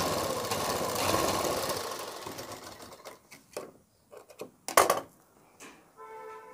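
Domestic sewing machine running, sewing a double round of stitching over the seam that joins a sleeve to a suit's armhole, fading and stopping after about two seconds. Scattered light clicks and one sharp knock follow as the garment is moved, and a brief steady tone sounds near the end.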